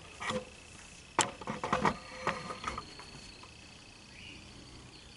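A handful of short, sharp clicks and taps in quick succession, the loudest about a second in, followed by a faint steady high tone.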